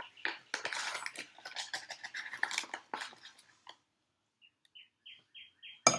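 Large spoon stirring wet flour-and-salt Play-Doh dough in a mixing bowl: sticky scraping and clicking of the spoon against the bowl, stopping at about three and a half seconds. A run of short high chirps follows near the end, then one sharp knock.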